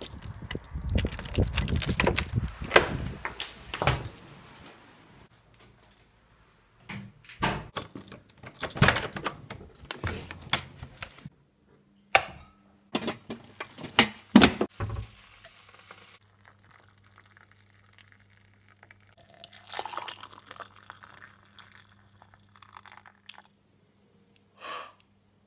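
Keys jangling and a key turning in a front-door lock, with rattling and sharp knocks. About halfway through, a few sharp clicks as an electric kettle's switch is pressed on, followed by a faint low steady hum.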